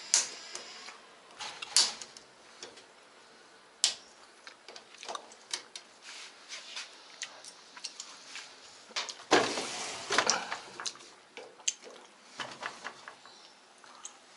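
Scattered clicks, taps and knocks of hand tools and washing-machine parts being handled during disassembly, with a louder scraping clatter lasting about a second, about nine seconds in.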